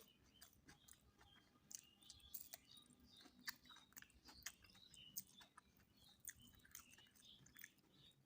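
Faint close-up chewing of a mouthful of mutton biryani, with irregular wet mouth clicks and smacks.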